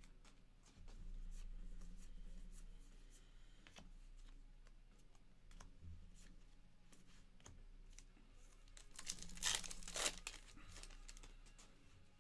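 A stack of Topps Heritage baseball cards being flipped through by hand: soft slides and small clicks of card stock against card stock, with two louder rustles about nine and a half and ten seconds in.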